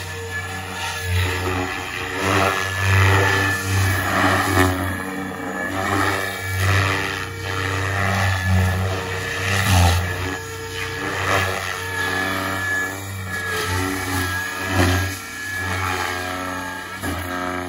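SAB Goblin Kraken electric RC helicopter with a three-blade main rotor in aerobatic flight: a steady rotor hum and blade whoosh that swells and fades every second or two as it manoeuvres, with a thin high whine running through it.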